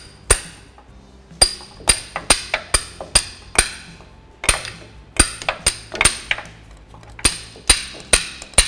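A hammer striking a metal punch in quick runs of sharp, ringing blows, about two or three a second with short pauses, driving a new CV axle seal into the front differential housing.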